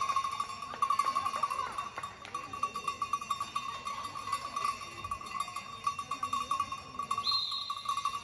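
A bell shaken quickly and without pause, ringing at one steady pitch. A short high whistle sounds about seven seconds in, and the ringing stops at the end.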